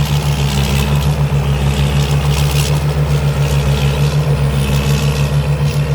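Rice combine harvester's Cummins diesel engine running steadily as it harvests: a loud, continuous drone with a fast, even pulsing.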